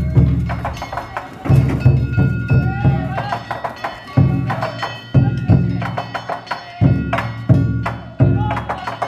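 Danjiri festival music: a big taiko drum struck in a driving rhythm with small hand gongs clanging rapidly over it.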